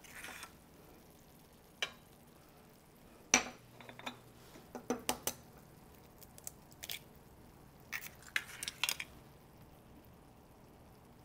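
Scattered short sharp clicks and knocks: eggs tapped and cracked on small ceramic ramekins and the ramekins clinking against the countertop and skillet, the loudest knock about three seconds in, with small clusters of taps about five and eight to nine seconds in.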